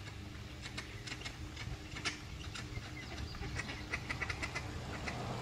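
Mallard ducks giving short, soft scattered calls, bunching up about three and a half to four and a half seconds in, over a low steady hum.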